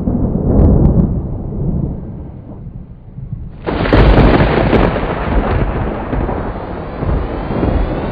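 Thunder rumbling, with a sudden louder clap about three and a half seconds in that rolls on and slowly fades.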